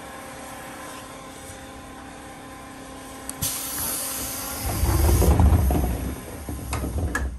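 A train's push-button passenger door closing: a sharp hiss of compressed air about three and a half seconds in, then a loud low rumble as the door slides shut and a couple of knocks near the end. A steady hum from the standing train runs underneath before the door moves.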